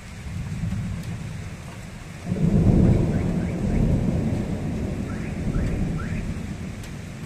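Thunder rumbling. A loud roll breaks in about two seconds in and then dies away slowly, with rain falling steadily underneath.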